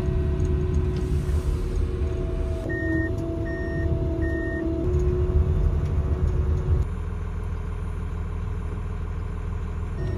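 Snow groomer's engine running steadily, heard from inside its cab. Three short beeps sound about three seconds in. About two-thirds of the way through, the running sound turns lower and plainer.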